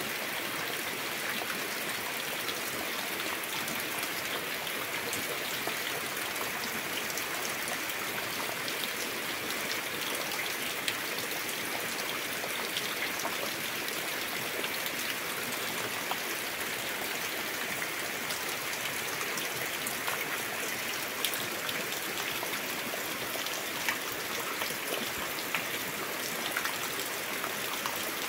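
Steady rain falling: an even hiss with many single drops ticking through it.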